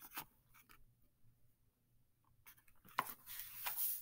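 Faint handling of a hardcover picture book: a couple of light clicks, a pause, then about three seconds in a sharp click and a brief papery rustle as the book is moved and lowered.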